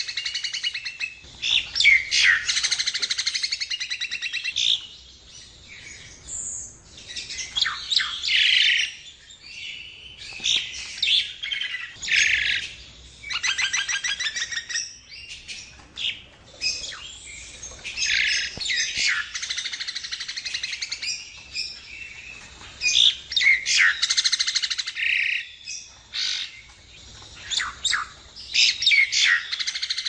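Javan myna singing a long, varied song of harsh chattering notes, fast rattles and whistles, in phrases broken by short pauses.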